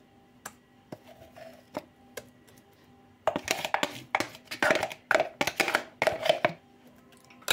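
A spoon scraping and knocking as thick blended lentil mash is scraped out of a blender jug into a steel bowl. A few light clicks come first, then a dense run of quick scrapes and taps for about three seconds, from about three seconds in.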